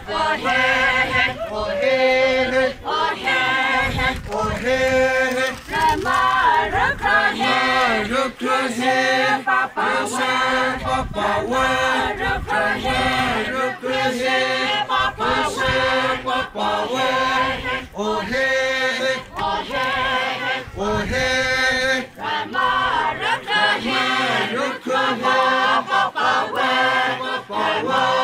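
A group of voices chanting and singing together without instruments, a traditional dance song sung in short phrases.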